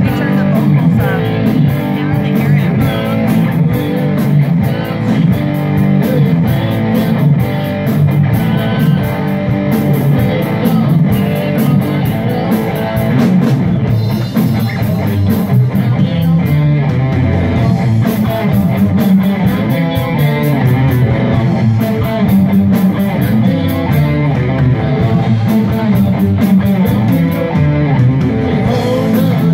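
Live rock band playing loudly and steadily: electric guitar, bass guitar and drum kit.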